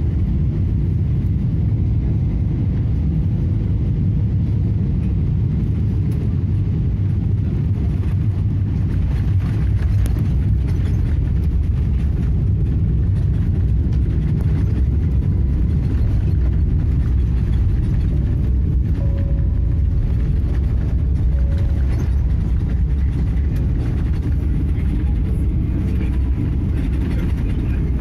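Airliner cabin noise during landing rollout: a steady low rumble of the engines and the wheels rolling on the runway, a little louder about ten seconds in.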